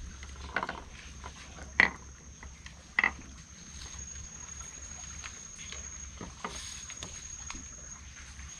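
Sharp knocks of a prawn-fishing rod and gear against a small boat's hull as it is handled and cast, a few in the first three seconds with the loudest two about a second apart, over a steady thin high whine.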